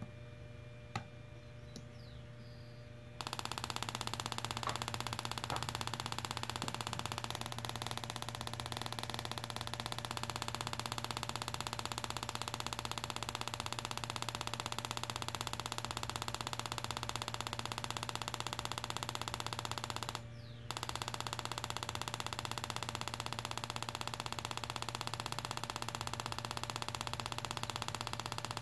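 Steady electronic buzz of a tester's beeper sounding while a probe touches a KTM 1190 pencil ignition coil. It starts abruptly about three seconds in and breaks off for about half a second near twenty seconds in, as if the probe briefly lost contact.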